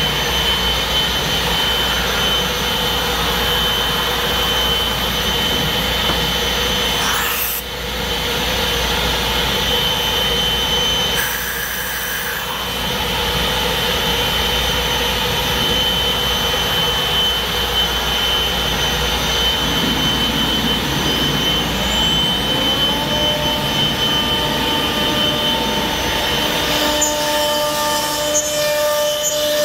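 MultiCam 3000 Series CNC router cutting sheet wood: a steady high spindle whine over the continuous rush of the cutting and the dust-extraction hose. A brief dip comes about a quarter of the way in, and in the last third a second, lower whine rises and then holds.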